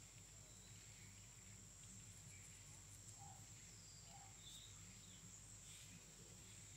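Near silence: faint outdoor background with a steady high-pitched insect drone and a few faint, short bird-like chirps.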